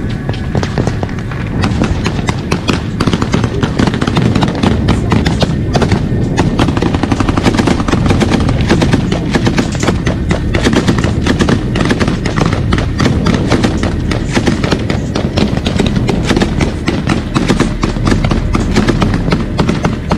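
Belt-fed machine gun firing at close range: rapid, closely packed shots that keep going with hardly a pause.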